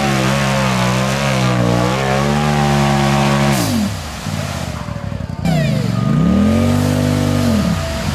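Polaris side-by-side UTV engine held at high revs as it ploughs through deep mud. About three and a half seconds in the revs fall away, then climb back up and fall off again near the end.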